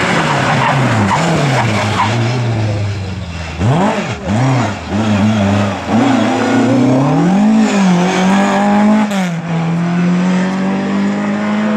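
Rally car engine heard from out of sight, revving up and down through gear changes. It gives a few quick throttle blips about four seconds in, climbs to a peak, then holds a steady pitch over the last few seconds.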